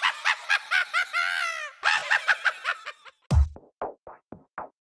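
A witch's cackling laugh, high-pitched and wavering, as an intro sound effect. About three seconds in, electronic music with a thudding bass drum beat starts.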